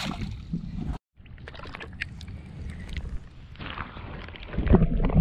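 A small blue crab tossed back splashes into the water, then the sound switches to that of a camera under water: muffled water noise with scattered clicks, and a loud low rush of water near the end.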